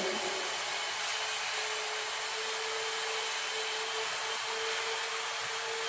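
Steady background hiss with a faint, steady whine just under 500 Hz, unchanged throughout.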